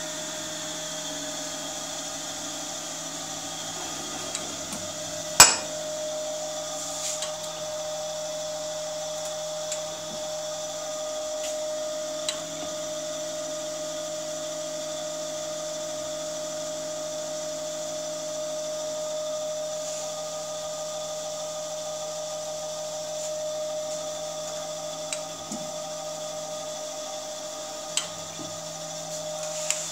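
Jones & Shipman 540AP surface grinder running, its motor and hydraulic pump giving a steady hum with a high whine. Occasional sharp clicks and clunks come as the table feed controls are worked, the loudest about five seconds in.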